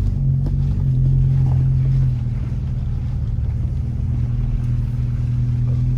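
A Subaru's boxer engine running steadily under the drone of tyres on a rough dirt track, heard from inside the cabin while driving; the engine note eases a little about two seconds in.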